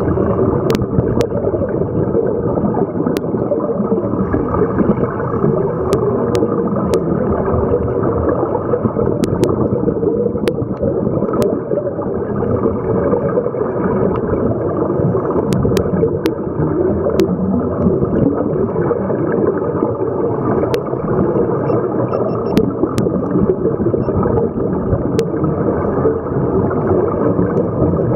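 Underwater sound heard through a camera housing: a steady, muffled rush and gurgle of scuba divers' exhaled regulator bubbles, with scattered sharp clicks.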